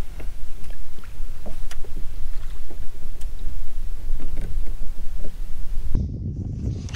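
Low, uneven rumble of wind and water noise aboard an open fishing boat, with a few faint ticks. About six seconds in, the sound changes abruptly to a duller rumble.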